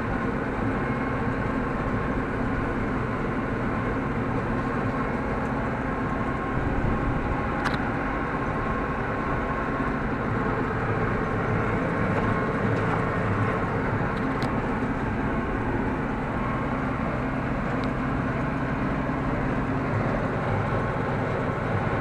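Massey Ferguson 6150 tractor running steadily under load while towing a Welger AP53 small square baler working in hay, heard from inside the tractor cab.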